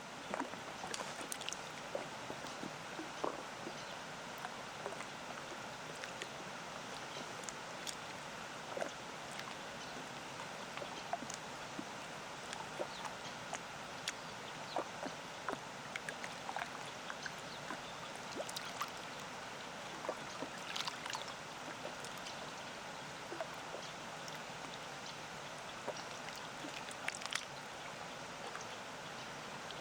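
Small waves lapping at a lake's edge in many little splashes, over the steady rush of a distant waterfall.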